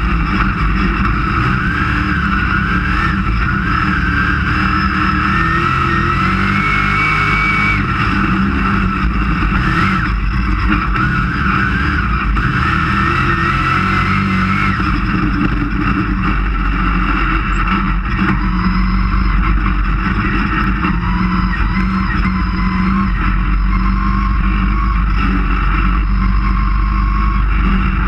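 Dirt-track race car's engine running hard at racing speed, heard from inside the cockpit, its pitch rising and falling as the driver gets on and off the throttle through the corners.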